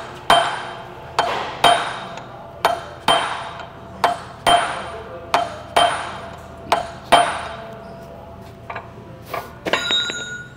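Hammer striking a chisel set against a steel shaft lock nut, about a dozen ringing metallic blows in quick pairs, tightening the nut to compress the inner races of the pump shaft's bearings. A few lighter metallic clinks follow near the end.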